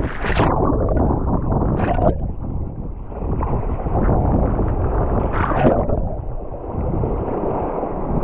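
Wind buffeting an action camera's microphone while kitesurfing across open water, with water splashing against the board three times: right at the start, about two seconds in, and about five and a half seconds in.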